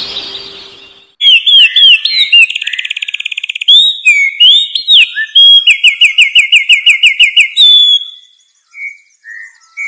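A songbird singing loudly, with varied whistled notes and fast rapid trills, starting abruptly about a second in. Near the end it gives way to softer, lower chirps.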